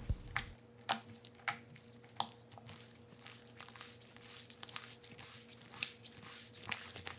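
Borax-activated clear-glue slime being pulled, stretched and kneaded by hand, giving irregular sticky clicks and pops as it is still slightly tacky and being worked until it is no longer stringy.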